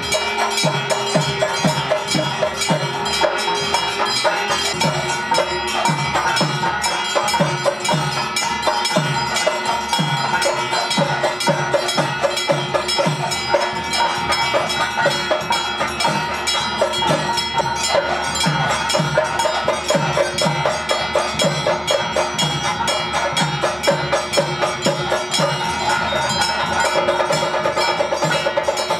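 Live temple ritual music: a drum beats a steady rhythm of a little over one stroke a second under ringing bells and steady held tones.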